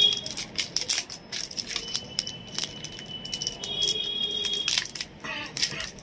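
Clear plastic bag crinkling and crackling in the hands as it is handled and opened, in quick irregular crackles. A faint, thin, high steady tone sounds for a few seconds in the middle.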